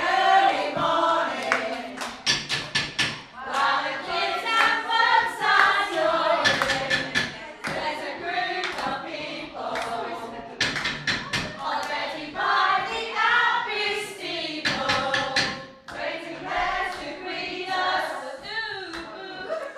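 A group of voices singing together, with bursts of claps or stamps at several points.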